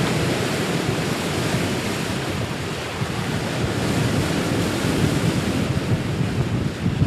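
Steady rushing of wind on the microphone over open-ocean water and waves.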